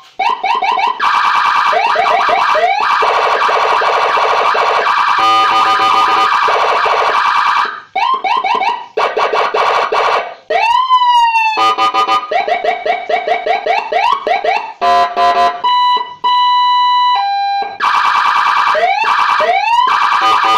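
80-watt electronic siren cycling through its tone patterns: rising whoops, a fast warble, rapid pulsing chirps, and a steady two-tone hi-lo, switching every few seconds with brief breaks between patterns.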